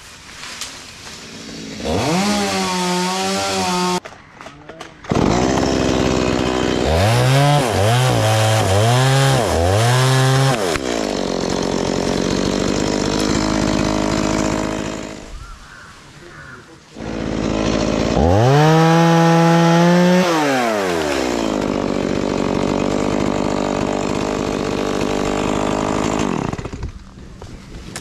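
Stihl two-stroke chainsaw revving: short bursts and a few quick throttle blips, then held at high throttle while cutting into mango branches, the engine pitch dropping as the chain bites. The saw eases off briefly partway through and then revs up and cuts again.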